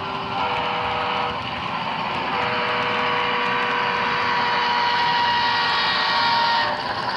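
HO-scale model diesel locomotives' sound decoders playing engine sound as the train runs past. Steady held tones sound over the running noise, briefly about half a second in and then again from about two and a half seconds in until shortly before the end.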